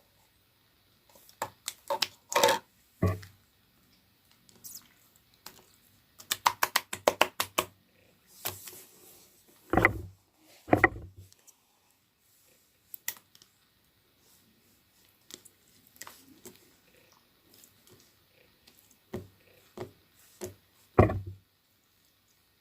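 Slime being handled by hand: scattered clicks and crackles, a fast run of about a dozen clicks around six seconds in, and a few heavier thuds, the loudest near the end.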